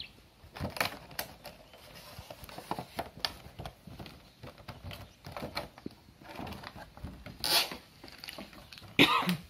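Clear plastic and cardboard doll packaging being handled and pulled apart: scattered crackles, taps and rustles, with a louder crinkle about three-quarters of the way through and a sharp louder noise just before the end.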